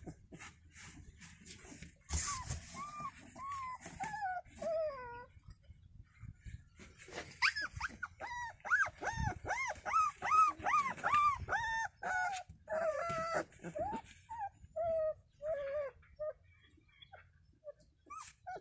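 Siberian husky puppies whining in short, high-pitched cries that rise and fall. The cries come in a quick run around the middle and are more scattered before and after.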